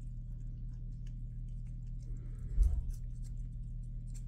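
Two cats licking a lickable treat from a hand-held squeeze tube: soft, scattered clicking laps. One dull thump comes about two and a half seconds in.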